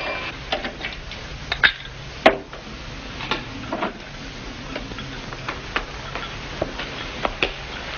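Glassware clinking and ice rattling as a drink is mixed: a scatter of sharp clinks, a few ringing briefly, over a steady hiss.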